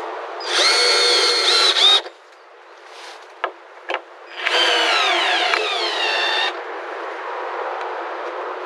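A handheld power tool's motor whining in two bursts, the first about a second and a half, the second about two seconds with its pitch sinking as it takes load in the wood.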